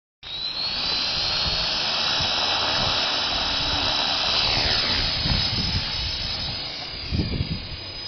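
Blade CP Pro electric RC helicopter flying close by, its motor and rotor blades making a steady high whine over a rushing hiss. About halfway through the whine slides down in pitch and fades as the helicopter moves away. Low rumbles of wind on the microphone come in near the end.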